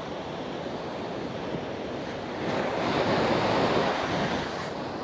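Surf breaking and washing up the beach, swelling about halfway through and easing off again, with wind blowing across the microphone.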